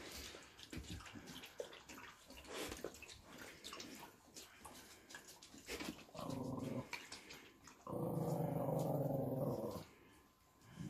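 A dog growling: a short low growl about six seconds in, then a longer, louder growl of about two seconds.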